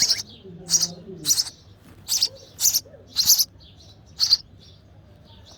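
Baby sparrow nestlings begging with short, high, loud chirps, about seven in a row roughly every half-second to second, stopping about four and a half seconds in. The calls are hungry chicks calling for food from the parent.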